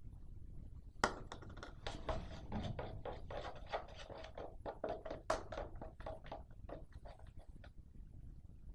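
Sticky, wet clicking and squelching of a runny homemade slime mixture of melted glue stick, shaving foam and Persil gel being stirred and worked by hand, several quick strokes a second, from about a second in until near the end. The mixture has stayed liquid and has not set into slime.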